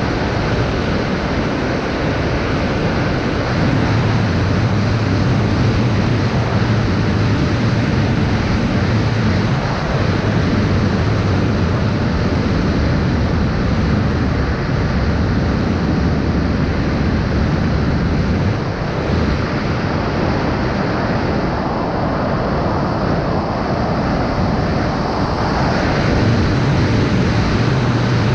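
FPV racing drone in flight, heard from an onboard action camera: a steady, loud rush of wind and propeller noise that swells and eases a little with the throttle.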